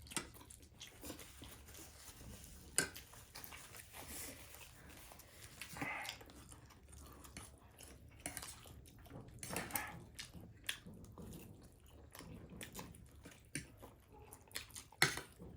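People chewing and slurping instant noodles at close range, with scattered sharp clicks and a few louder slurping smears.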